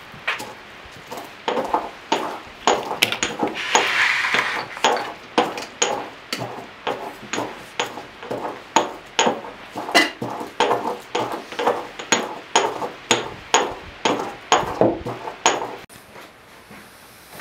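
Steady, even metal-on-metal striking at food preparation, about two blows a second, each with a bright ringing ping, stopping suddenly near the end.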